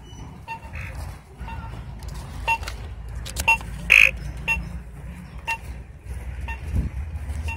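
Nerf Lazer Tag blaster counting down before the game starts, giving a short electronic beep about once a second. A steady low rumble sits on the microphone underneath.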